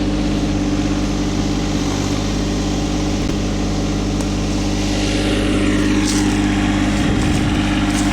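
Garden tiller's engine running steadily at a constant pitch.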